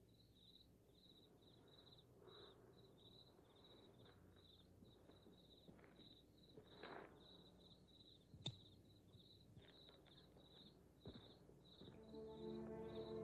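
Crickets chirping faintly in an even, rapid series of high chirps, about three a second, with one sharp click about eight and a half seconds in. Soft music begins to rise near the end.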